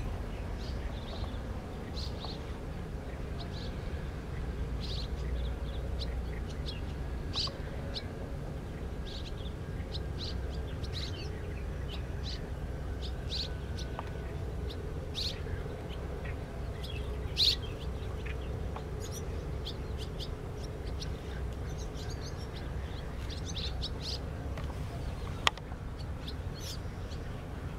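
Swallows chirping in flight: many short, separate high chirps scattered throughout, over a steady low background rumble, with one sharp click near the end.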